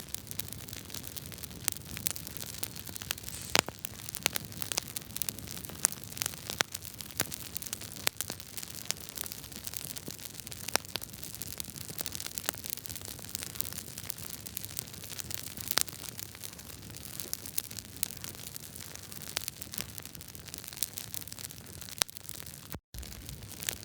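Wood fire crackling: many sharp, irregular pops and snaps over a steady hiss. The sound drops out for an instant near the end.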